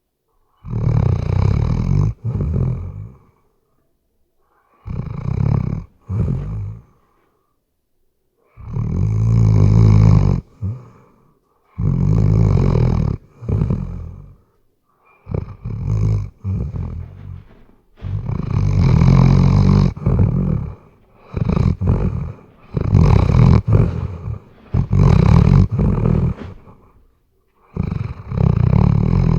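A Weimaraner snoring in deep sleep: a loud snore of one to two seconds with each breath, each followed by a shorter one, repeating about every three seconds.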